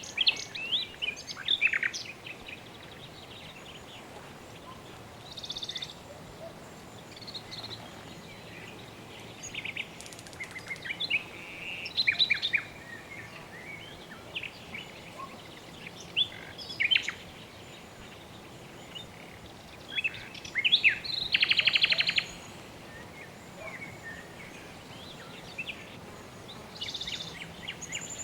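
Birds chirping and calling in scattered short phrases and trills, with one rapid buzzy trill about three quarters of the way through, over a steady soft background hiss.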